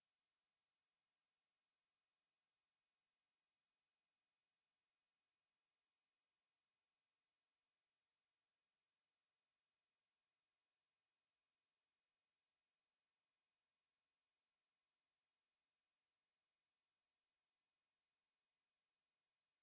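A single steady 6088 Hz sine-wave test tone, a constant high-pitched pure whistle at unchanging level.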